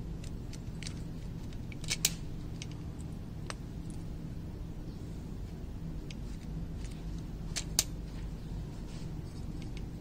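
Small hand tools clicking and snipping during fibre splicing work, with two sharper clicks about two seconds in and just before eight seconds, over a steady low hum.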